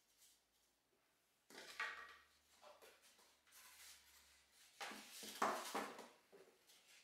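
Moulded Elapor foam parts of a model plane being handled: the fuselage shells are lifted apart and set down on a wooden table, with rubbing and light knocks in two bursts, about a second and a half in and again about five seconds in.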